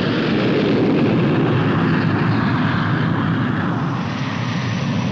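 Jet aircraft flying past: a steady rushing jet-engine noise with no clear tone, easing slightly after about three and a half seconds.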